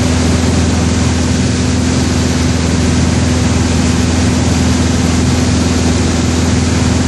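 Piper PA-28's piston engine and propeller droning steadily, heard from inside the cabin in flight.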